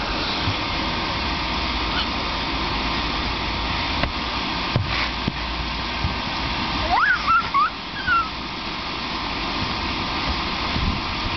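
Steady running of the electric blower fan that keeps the inflatable bouncy castle up, with a few short rising squeals about seven seconds in.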